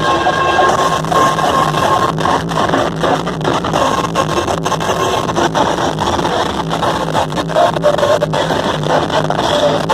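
Loud music blasting from large street DJ sound systems, dense and steady throughout.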